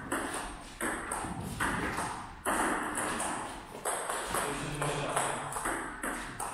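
Table tennis ball being hit back and forth, sharp clicks off the paddles and table about once a second, each with a short echo from the hall.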